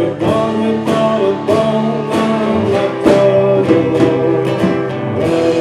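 Live band playing a guitar-led song: acoustic guitar strumming with electric guitar over a steady drum beat.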